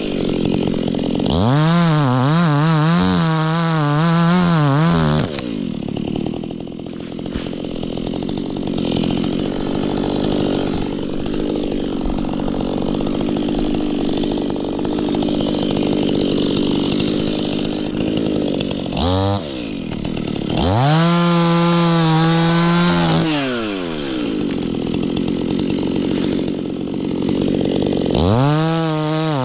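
Two-stroke chainsaw revved up to full throttle, then running lower and rougher for about fourteen seconds as it cuts into wood, then revving free again in short bursts.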